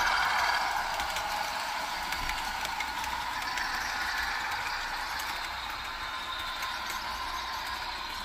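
Model diesel locomotive's onboard sound system playing a diesel engine running, thin and lacking bass as from a small built-in speaker, with light clicking and rattling from the model running on its track. It gets slightly quieter over the few seconds.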